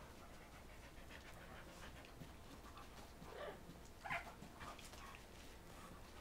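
Two dogs, a Plott hound mix and a greyhound–cattle dog mix, play-wrestling: faint panting and scuffling, with two short, slightly louder sounds about three and four seconds in.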